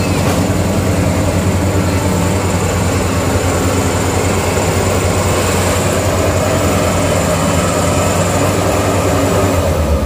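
Maxxi Bimo X rice combine harvester running close by while cutting and threshing rice: a loud, steady drone of its engine and threshing machinery, with a deep hum underneath and a faint high whine.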